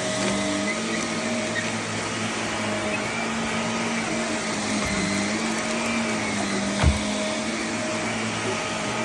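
Vacuum cleaner running over a dirty carpet, its motor hum steady with slight dips in pitch. A single thump about seven seconds in.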